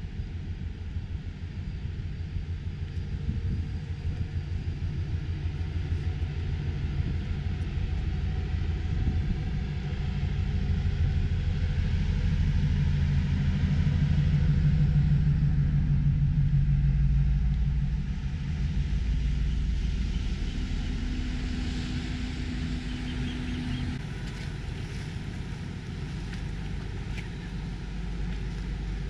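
Low, steady engine rumble of a passing ship, with a low hum in it, swelling about halfway through and then easing off.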